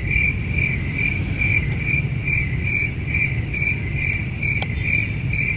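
A cricket chirping in a steady rhythm, about two and a half high chirps a second, over a low steady rumble.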